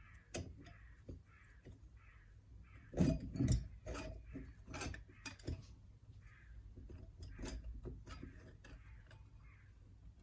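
Hand tools and metal engine parts clicking and knocking during disassembly of a motorcycle engine's top end, with a cluster of heavier thumps about three seconds in.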